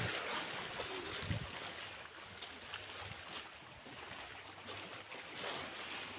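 Strong wind and choppy sea water: a steady rushing noise with a few faint knocks, easing slightly about two seconds in.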